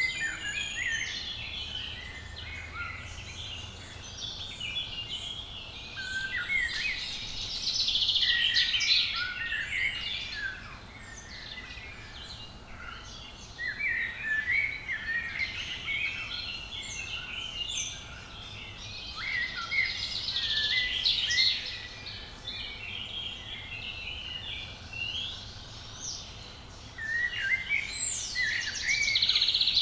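Woodland songbirds singing, several overlapping chirping and whistled phrases coming in bouts every few seconds, over a faint steady low rumble.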